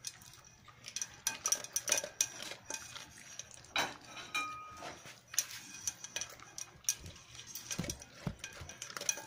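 A dog eating dry kibble from a metal pot: irregular clinks and rattles of pellets and muzzle against the metal, with crunchy chewing, and a few heavier knocks against the pot near the end.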